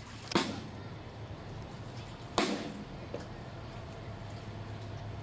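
Two sharp clicks, about two seconds apart, over a steady low hum.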